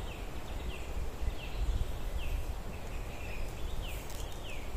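A small bird calling over and over: a short, high falling note repeated about every two-thirds of a second, over a low rumbling noise.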